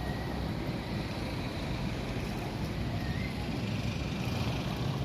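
Steady low rumble of distant town traffic, mixed with wind noise on the microphone.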